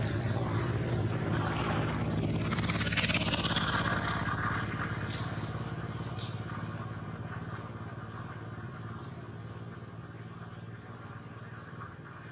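Motorcycle engine running, loudest about three seconds in and then fading steadily as it moves away.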